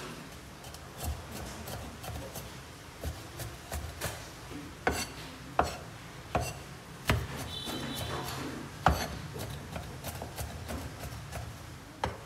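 Broad-bladed knife mincing garlic and shallots on a round wooden chopping board: irregular knocks of the blade on the wood, a few harder strikes in the middle.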